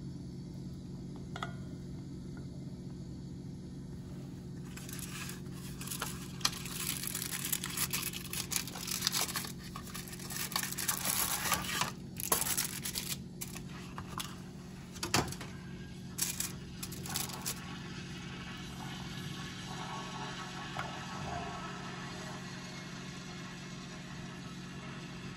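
Paper and foil wrapping of a chocolate bar crinkling and tearing as it is unwrapped, in irregular bursts from about five seconds in until a few seconds past the middle. Under it, a steady low hum.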